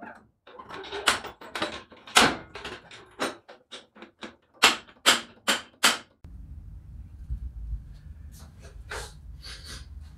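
Sharp metal clanks and knocks from working a jack and jack stands under a truck frame, ending in four strong strikes about two a second. About six seconds in they give way to a steady low hum with a few faint taps.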